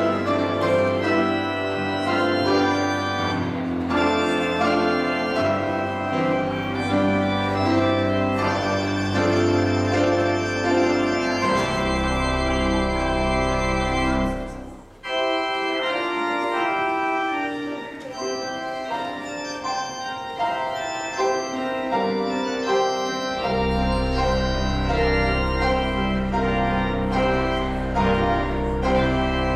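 Organ playing sustained chords over held deep pedal notes, with a brief break about halfway; the deep bass drops out for several seconds after the break and comes back in near the end.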